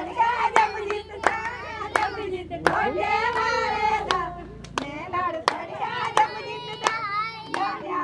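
Women singing a Punjabi folk song to steady hand clapping, about two claps a second.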